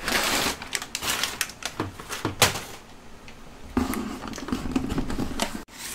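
Crumpled packing paper rustling and crinkling as hands pull it out of a cardboard box, with many sharp crackles. It is loudest in the first half, then settles into softer rustling and handling of the box.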